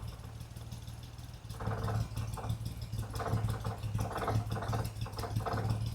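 Vauxhall Royale's 2.8-litre straight-six engine idling steadily while its carburettor mixture is set to about 1.5% CO, with faint irregular puffs and ticks over a low steady hum.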